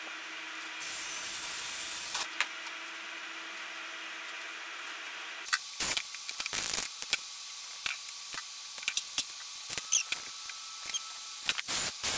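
Ryobi cordless drill briefly drilling through canvas into aluminium C-channel, a burst of about a second and a half starting about a second in. From about halfway on, a string of short sharp clicks and knocks from tools and rivets being handled for riveting.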